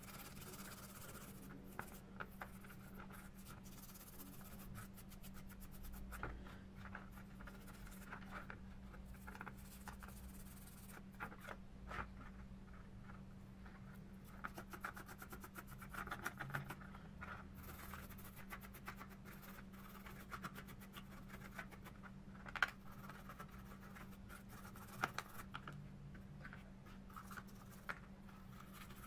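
Intermittent scratching and small clicks as small speedometer parts are scrubbed and handled in a shallow metal pan of cleaning liquid, with two sharper clicks in the last third, over a faint steady hum.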